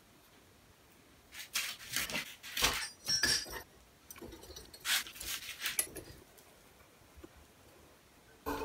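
Steel parts clinking and scraping against each other as a metal mounting disc and plate are handled and fitted together, in several short clattering bursts after a quiet start.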